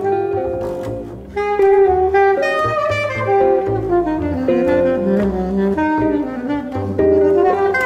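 Jazz trio of tenor saxophone, double bass and guitar playing; the saxophone carries the melody over low double bass notes. The line breaks off briefly about a second in, then comes back with a falling run of notes.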